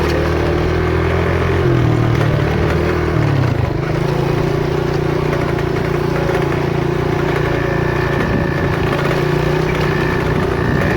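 Engine of a 110cc semi-automatic monkey bike running under way with a steady note. The engine note shifts around two to three seconds in, then holds steady.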